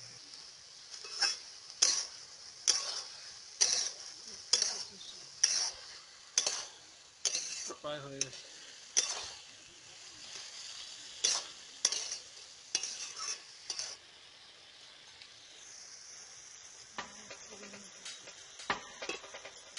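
Metal spatula scraping and stirring chopped taro stems and prawns in a metal wok-style pan, about one scrape a second over a steady sizzle from the hot pan; the scraping stops about fourteen seconds in, leaving the sizzle with a few faint ticks.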